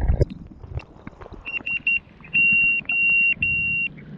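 A few low thumps at the start, then a high-pitched electronic beeper sounds three short beeps followed by three longer ones. It is the lost-model buzzer of a crashed FPV quad, sounding after the radio signal was lost.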